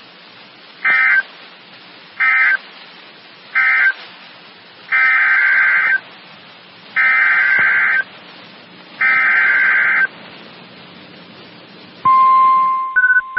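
Emergency Alert System data bursts, each a harsh two-tone digital screech over radio hiss: three short end-of-message bursts close the first severe thunderstorm warning, then three longer header bursts announce the next warning. About twelve seconds in, a steady high warning alert tone begins, with a few short beeps over it near the end.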